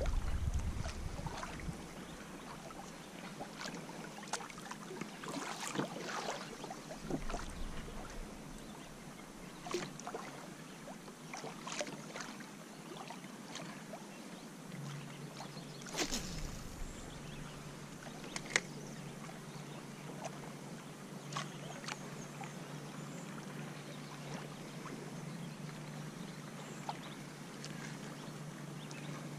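Water lapping against a plastic kayak hull, with scattered light knocks and clicks on the boat. From about halfway a faint steady low hum joins in.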